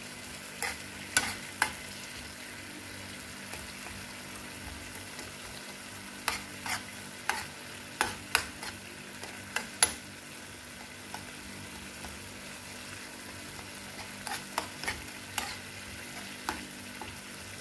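Chopped tomatoes sizzling in oil in a nonstick frying pan while a metal spoon stirs and mashes them. The spoon knocks and scrapes against the pan in sharp clicks, coming in three bunches, about a second in, in the middle, and near the end.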